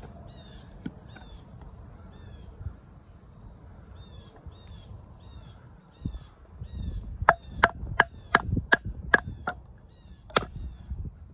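A wooden baton knocking on the spine of a D2-steel fixed-blade bushcraft knife, driving the blade into a green stick to cut a notch: a run of about eight sharp knocks, about three a second, starting around seven seconds in, then another knock near the end. Before the knocks a bird calls over and over in the background.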